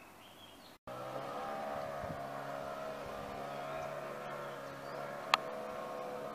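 An engine running steadily with an even drone, starting abruptly just under a second in. A single sharp click sounds about five seconds in.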